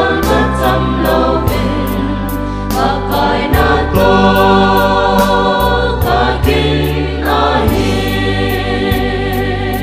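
Mixed choir of men and women singing a gospel song in harmony over instrumental backing, with sustained bass notes and a steady beat of light percussion ticks.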